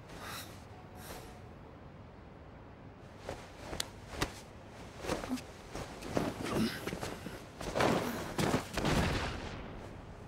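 Scuffs, rustles and soft thuds of bodies moving over rubble, scattered at first and growing busier from about three seconds in, with the heaviest rush of sound between about seven and a half and nine and a half seconds before it fades.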